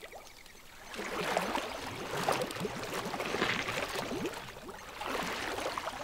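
Water gurgling and slurping at an elephant's trunk tip as it sucks up the clean surface layer of a stagnant pool. It starts about a second in and comes in two swells.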